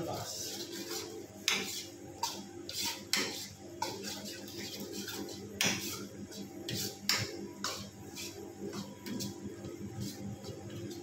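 Metal ladle clinking and scraping against a steel wok while pasta in sauce is stirred: irregular sharp knocks, about a dozen, over a steady low hum.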